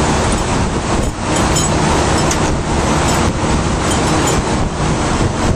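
Loud, steady roar of running machinery, with no clear rhythm or pitch.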